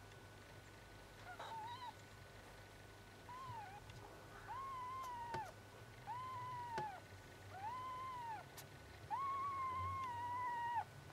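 Four-day-old Bengal kitten mewing: a series of about six high, arched cries, each rising, holding and falling, that grow longer and louder, the last lasting nearly two seconds.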